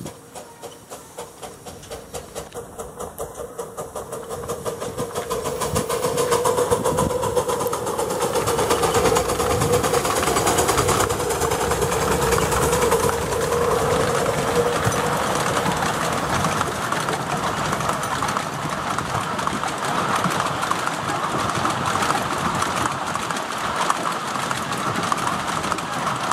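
Miniature 7¼-inch-gauge steam locomotive chuffing in even beats, about three a second, growing louder as it nears. From about six seconds in, the loco and its passenger coaches run past with a steady rumble and clatter of wheels on the rails.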